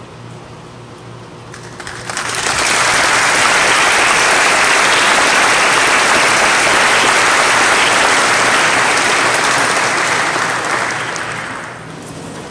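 Audience applauding, starting about two seconds in, holding steady, then dying away shortly before the end. A low steady hum sits underneath.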